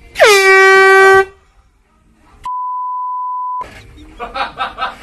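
An edited-in air horn sound effect blasts very loudly for about a second, its pitch dropping at the onset and then holding. About a second later comes a steady one-second beep: a pure censor tone.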